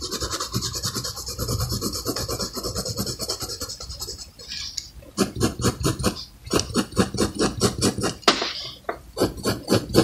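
Graphite pencil scratching on paper: a steady stretch of scratching, then from about five seconds in, quick separate hatching strokes, several a second.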